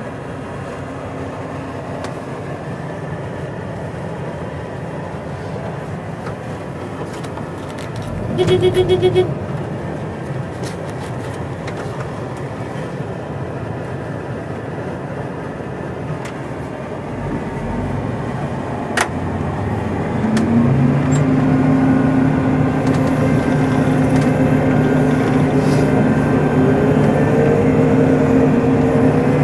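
Combine harvester running steadily, with a short run of rapid beeps about eight seconds in. About twenty seconds in, the machine gets louder as the engine and threshing come up to working speed, one tone climbing as it speeds up.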